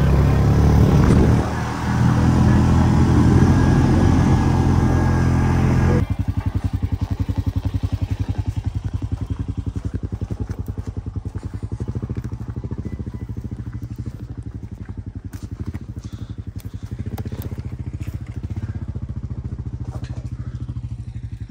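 A vehicle engine running loudly while the vehicle is under way, then, after an abrupt cut about six seconds in, an engine idling with a fast, even beat.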